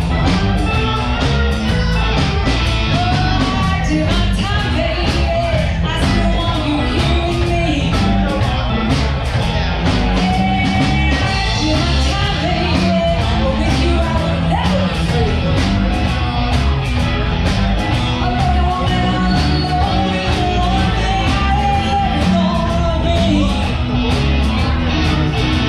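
Live blues band playing: electric guitar, bass and drums in a steady beat, with a woman singing over them.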